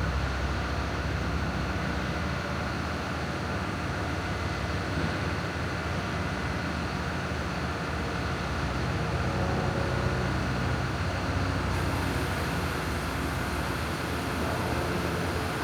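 An engine running steadily at a constant speed, low and even with no clear strokes or changes. A faint high hiss joins about twelve seconds in.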